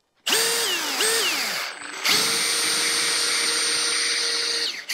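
Milwaukee cordless drill driving a long wood screw into framing lumber: two short runs whose whine drops in pitch as the motor takes the load, then a longer steady run that stops near the end.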